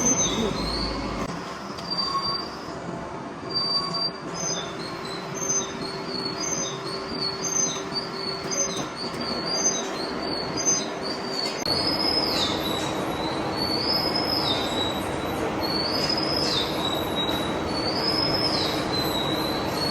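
Machine tool cutting metal, with a high metallic squeal that repeats over the steady run of the machine. The squeals are short and frequent at first. About halfway through they become longer, dropping in pitch, roughly every two seconds.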